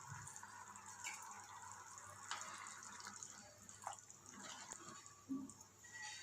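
Soup simmering in a pot on low heat: faint bubbling with a few soft pops.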